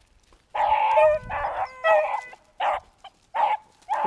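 Beagles baying in a run of short, loud cries, with one longer drawn-out bay about a second in. These are hounds giving tongue on a rabbit's trail during the chase.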